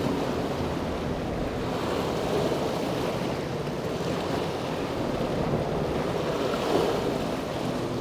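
Steady rush of wind and surf on an outdoor webcam microphone, the wind buffeting the mic, with a faint steady low hum underneath.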